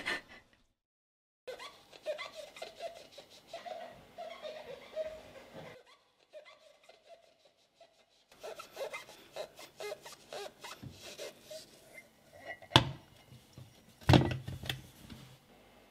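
Sponge scrubbing a ceramic mug at a stainless steel sink: scattered rubbing and light clinks, a sharp knock near the end, then a louder clatter of the mug against the sink. Earlier comes a quieter stretch of muffled, indistinct sound.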